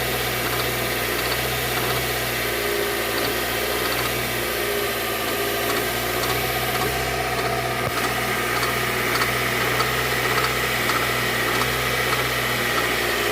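Hyundai car engine idling steadily, with faint regular ticks over the running: the abnormal engine noise being shown as a fault.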